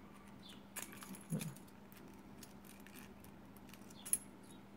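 Faint metallic clicks and light jingling from a stainless steel Milanese mesh watch strap's clasp as its metal clip is hooked onto the bar, with one sharper click about four seconds in.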